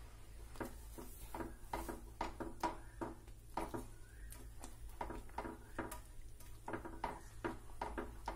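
Silicone whisk beating a thick, sticky cornflour halwa mixture in a nonstick pan: an uneven run of soft knocks and scrapes against the pan, about two to three a second, over a steady low hum.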